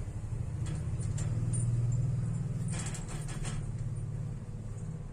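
Low, steady motor-like hum that swells during the first two seconds and eases off after about three seconds, with a few faint clicks near the middle.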